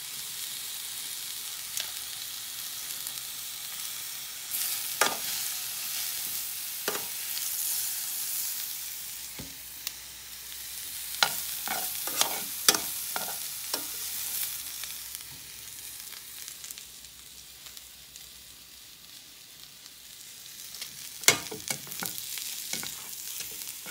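Lamb chops and stinging nettles frying in butter in a pan, sizzling steadily. Metal tongs click against the pan a few times, with a louder run of clicks near the end.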